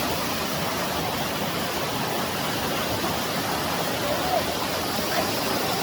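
Waterfall pouring in a steady, even rush, with faint voices briefly about four and five seconds in.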